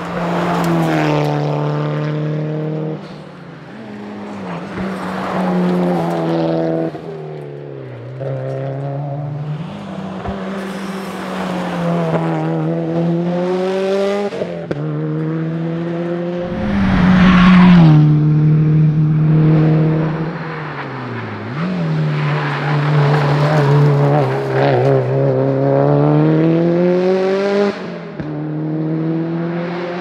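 Subaru WRX STI rally car's turbocharged flat-four engine driven hard, its pitch climbing under acceleration and dropping sharply at each gearchange, over several passes of the car. Loudest where the car goes by close.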